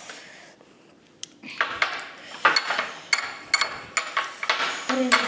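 Metal spoon clinking and scraping against a dish, a run of short ringing strikes starting about a second in.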